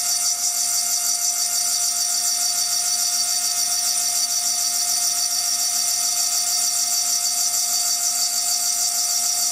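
CNC milling machine's spindle driving a small sharp cutter that engraves the glass of a beer bottle: a steady high-pitched whine and hiss with a fixed lower tone underneath.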